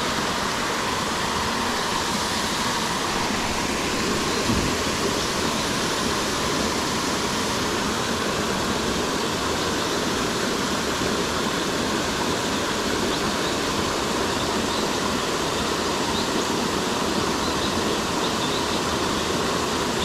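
Waterfall pouring steadily: a constant, even rush of falling water.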